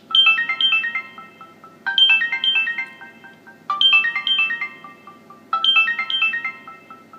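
Samsung GT-S3370 (Corby 3G) mobile phone playing a built-in ringtone: a short run of quick notes falling in pitch, repeated four times, about every two seconds.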